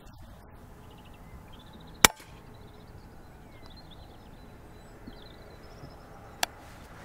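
A single shot from a Daystate Mk4 air rifle about two seconds in, one sharp crack that kills a rabbit outright. A lighter click follows about four seconds later, with faint birdsong chirps in the background.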